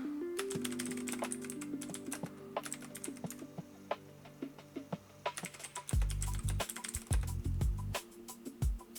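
Computer keyboard typing: rapid key clicks in bursts, over background music, with a few deep thumps about six to eight seconds in.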